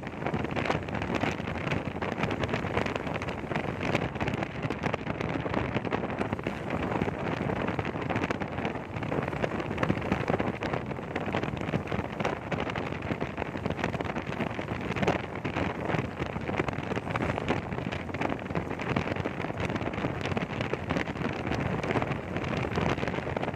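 Steady rushing noise of wind buffeting the microphone.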